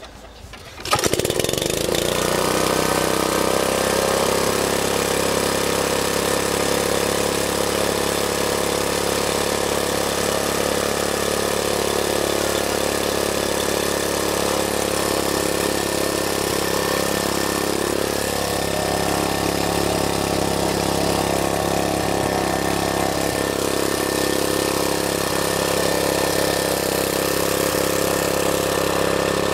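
Einhell garden tiller's small petrol engine, rope-started by hand on the bare flywheel because its recoil starter is broken, catching about a second in and then running steadily.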